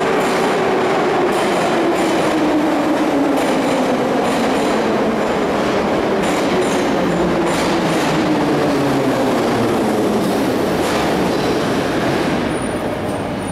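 Moscow Metro 81-760A/761A/763A train running into the station and slowing, its electric traction whine falling steadily in pitch over a loud rumble of wheels on rails, with scattered clicks.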